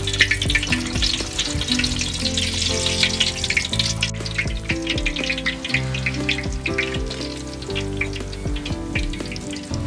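Hot oil in a large wok sizzling and crackling densely around a whole durian fruit being deep-fried in it. A melodic music track plays underneath.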